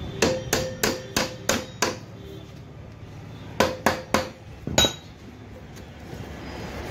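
Hand hammer striking metal at the rear axle of an electric scooter, knocking it loose to free the rear wheel. There are six quick blows at about three a second, a short pause, then four more, each with a brief metallic ring.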